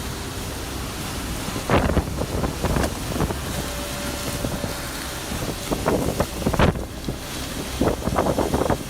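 Strong storm wind buffeting the microphone in irregular gusts over a steady rushing noise.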